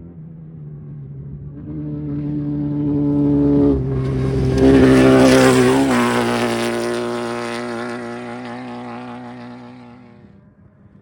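Off-road race vehicle approaching at speed, passing close and fading away, its engine running steadily. The sound is loudest about halfway through, and the engine note dips slightly in pitch as it goes by.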